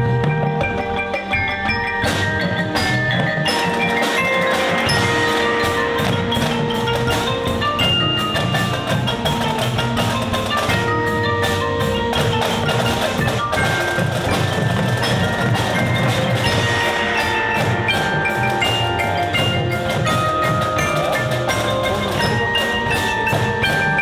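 Show band playing, with mallet percussion such as bells and marimba ringing over held notes and a regular beat of drum strikes.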